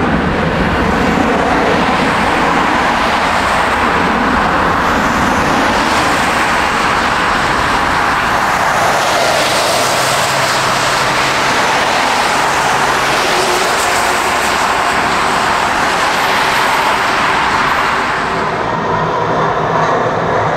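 Jet airliner's engines, loud and steady, swelling about halfway through and easing off near the end.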